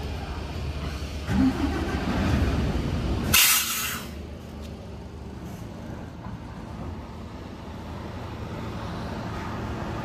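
Heavy truck engine running with a deep rumble, and about three and a half seconds in a loud, short hiss of air typical of the air brakes releasing; after it the engine sounds quieter.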